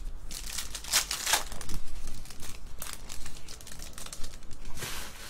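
Foil trading-card pack being torn open by hand, its wrapper crinkling and rustling, loudest about a second in, with another burst of crinkling near the end.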